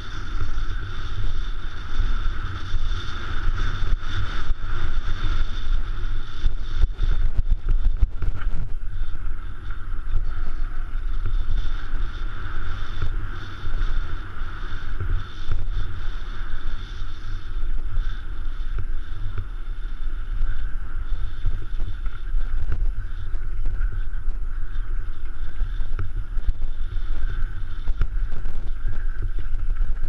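Mountain bike descending a rough gravel trail at speed: tyres and frame rattling and knocking over the ground, with heavy wind buffeting on the camera microphone and a steady high whir.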